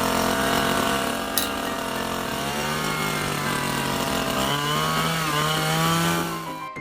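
A motor-driven machine running continuously, noisy, with its pitch wavering slowly up and down, cutting off abruptly near the end.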